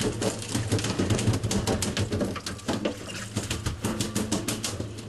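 Rapid, irregular clicking and knocking over a steady low engine hum.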